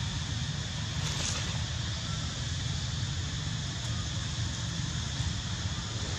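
Wind buffeting the microphone in a steady low rumble, over a constant high hiss of outdoor background, with a faint brief rustle about a second in.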